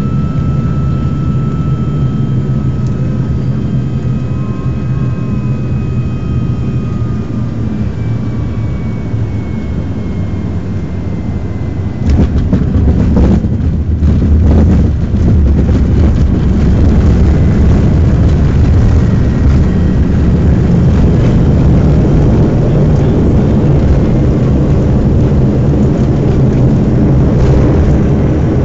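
Dornier 328 engines droning in the cabin on final approach, their tones slowly falling in pitch. About twelve seconds in the sound jumps suddenly to a louder, deeper rumble with a few knocks as the aircraft touches down, and stays loud through the rollout.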